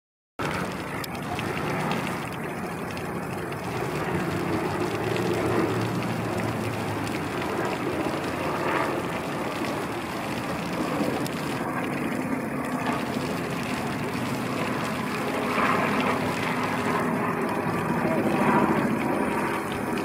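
Steady outdoor background noise: a continuous low rumble and hiss with no distinct events.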